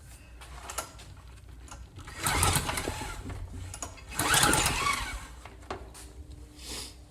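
Two pulls on the recoil starter of a Briggs & Stratton small engine, each a brief rattling crank of about a second that does not catch. The owner takes the failure to fire for the switch being left in the off position.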